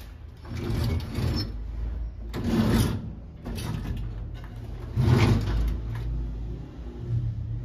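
Wooden dresser drawers being slid open and shut in their runners: three slides, each under a second long, about half a second, two and a half seconds and five seconds in.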